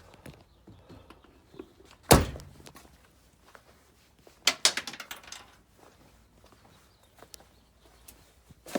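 One heavy thunk about two seconds in, then a quick run of knocks and clicks a couple of seconds later, from parts being handled inside a car's rear seat area.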